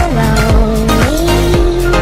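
Background music with a steady beat and a held melody line that slides between pitches.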